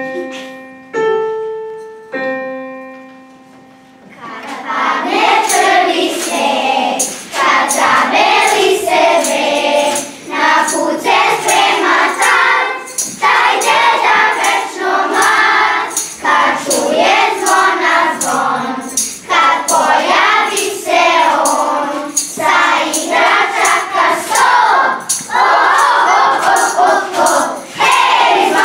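Three held instrument notes, one after another, then a choir singing together from about four seconds in.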